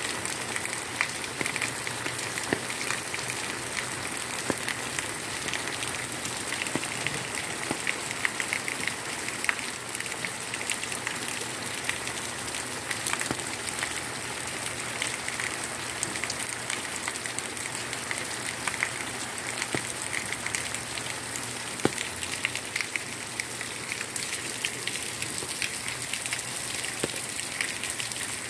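Steady rain falling on a wet paved street, an even hiss with many separate drops ticking close by.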